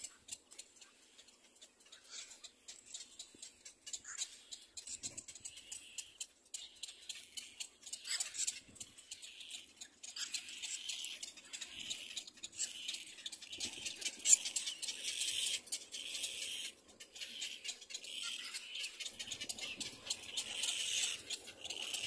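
Cormorant chick making high, wheezy begging squeaks in repeated bursts, starting about ten seconds in, with faint irregular clicking before.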